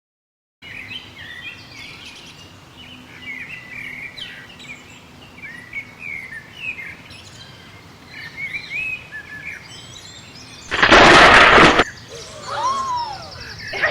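Songbirds chirping and twittering in many short, high calls. About eleven seconds in comes a loud, whooshing burst of noise lasting about a second, followed by a few gliding tones.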